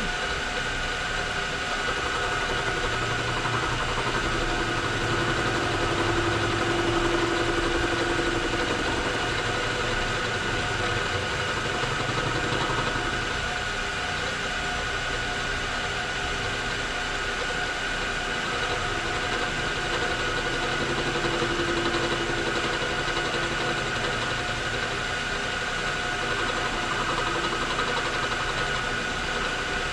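Machine tool motor running steadily, its low hum swelling twice, while it cuts a new thread into a thin-walled zinc die-cast carburetor float bowl.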